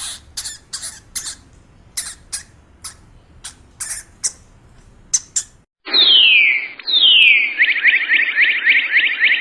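Animal calls: a series of short, high squeaks, two or three a second. About six seconds in they give way to long falling whistles that quicken into a rapid trill of descending notes.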